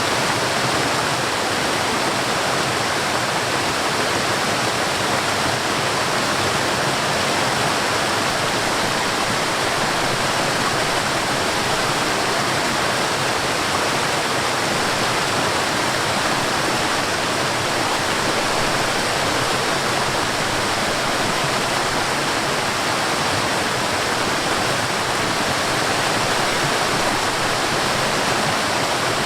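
Mountain stream and small waterfall: water running and splashing in a steady, even rush without a break.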